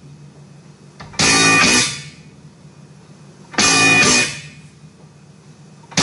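Music playing from a JBL OnBeat Rumble Bluetooth speaker dock: two loud chord hits about two and a half seconds apart, each fading out under a low sustained tone.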